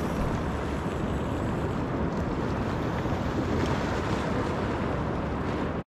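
Wind buffeting the microphone over small waves washing on a sandy shore, a steady rushing noise with no clear individual events; it cuts out abruptly for an instant just before the end.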